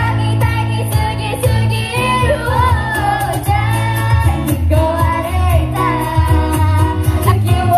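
Pop song with female singing, played loud through stage PA loudspeakers over a heavy bass line.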